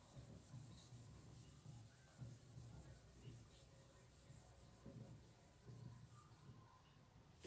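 Faint rubbing of a marker on a whiteboard as it is written with, in soft, irregular strokes over room hiss.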